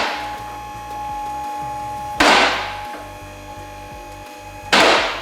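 Background music with sustained chords over a low, rhythmic bass line, cut by two loud crash-like hits about two and a half seconds apart, each dying away.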